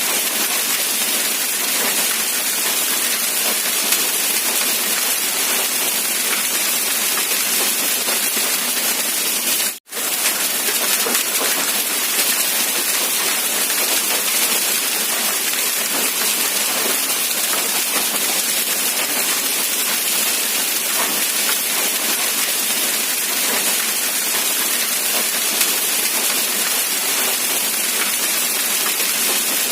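Steady rain, an even hiss of falling drops. It cuts out for a split second about ten seconds in, then resumes unchanged.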